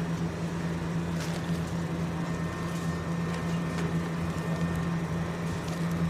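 A steady low machine hum, unchanging throughout, with a few faint soft ticks.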